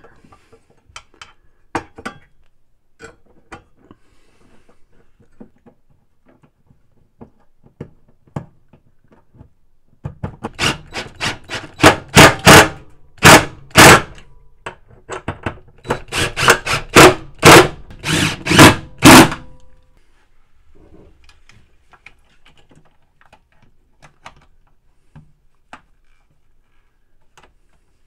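Cordless DeWalt driver running bolts down on a washing machine's clutch assembly in a string of short, loud bursts, starting about ten seconds in and lasting about ten seconds. Light clicks of parts and bolts being handled come before and after.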